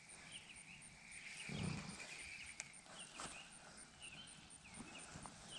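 Faint outdoor ambience: small birds chirping in short scattered notes, with a soft low rustle about a second and a half in and a few sharp clicks near the middle.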